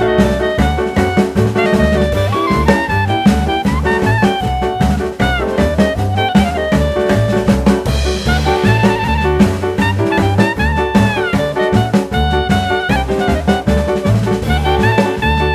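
Background music: an upbeat swing-style jazz tune with brass, saxophone and a drum kit keeping a steady beat.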